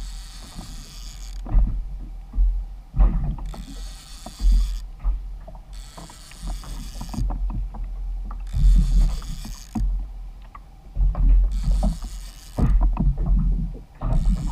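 Wind buffeting the microphone of a kayak-mounted camera, in gusts, with water washing and slapping against the kayak's hull every couple of seconds and scattered small clicks and knocks.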